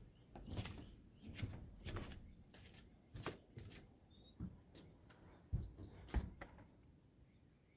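Faint, irregular knocks and clicks, a dozen or so, with two sharper knocks near the end.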